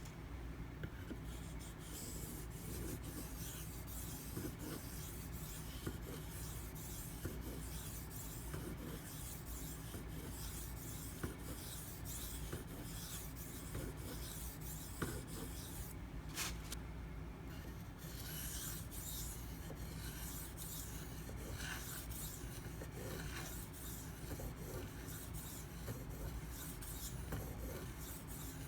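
Spyderco PM2's Maxamet steel blade being stroked along a 2500-grit silicon carbide sharpening stone: a steady run of short scraping strokes.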